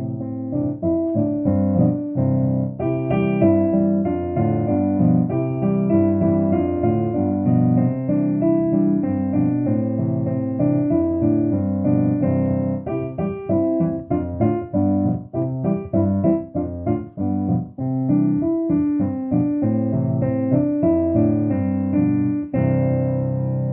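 Piano playing the accompaniment to a vocal warm-up exercise: a short figure of chords repeated again and again, ending on a held chord near the end.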